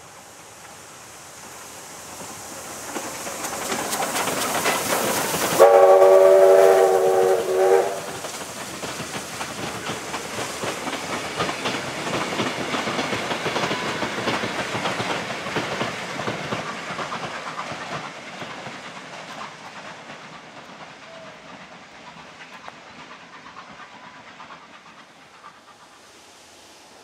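Oil-fired steam locomotive J549 approaches and passes, sounding its steam whistle about six seconds in for roughly two seconds. Its wooden passenger carriages then rumble and clatter across a timber trestle bridge, fading away.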